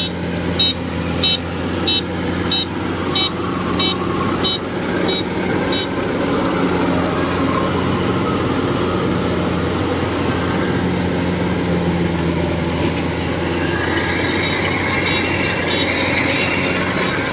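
Kubota DC-105X rice combine harvester's diesel engine running steadily under load while cutting rice. A high electronic beep repeats about one and a half times a second for the first six seconds and comes back more faintly near the end.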